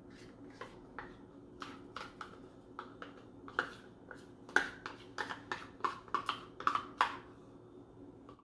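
Irregular light clicks and taps of kitchenware, a utensil against a cup and bowl, as a cup of condensed milk is added to mashed bananas. The taps come faster and louder in the second half.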